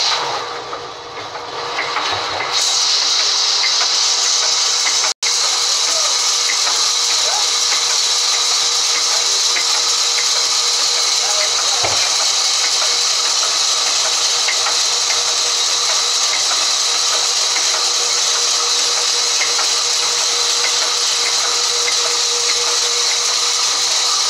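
Sawmill band saw running and cutting through a log with a loud, steady high-pitched hiss. The hiss is softer for the first couple of seconds.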